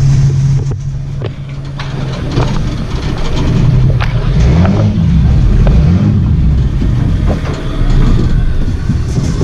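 A motor vehicle's engine running close by, its note rising and falling several times around the middle, with scattered short knocks and clicks.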